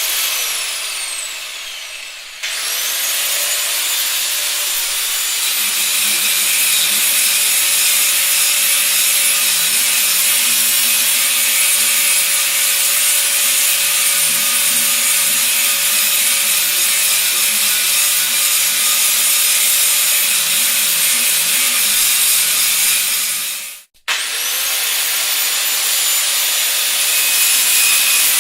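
Circular saw motor winding down, its whine falling away. A few seconds in it starts again, with a rising whine that settles into a high steady spin, then runs under load cutting for a long stretch. Near the end it cuts off abruptly and starts up again, spinning up to a steady whine.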